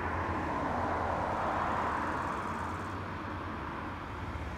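Distant four-engine turboprop drone of a C-130 Hercules transport plane in flight, a steady rushing hum with a low undertone that slowly fades.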